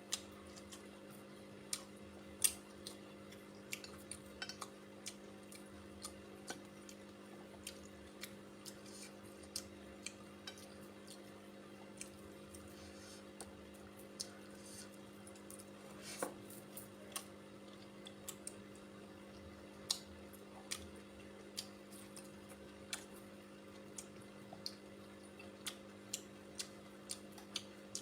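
Sounds of someone eating a meal: irregular sharp clicks, taps and wet smacks of food being picked from a plate and chewed, one or two a second. A steady low hum runs underneath.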